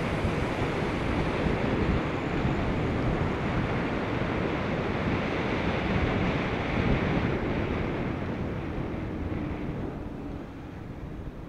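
Wind buffeting the microphone of a camera on a moving bicycle: a steady rushing noise that eases off near the end.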